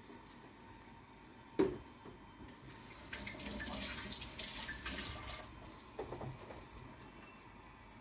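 Water running in a stream for a few seconds, with a single sharp knock shortly before it starts and a few small clicks after it stops.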